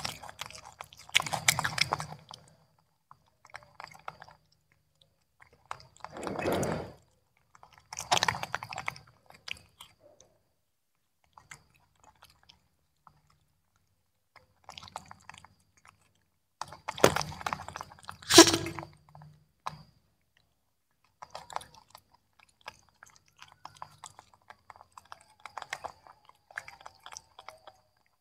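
Young macaques chewing and crunching broccoli florets, in irregular bursts with quiet pauses between them. The loudest crunching comes about 17 to 18 seconds in.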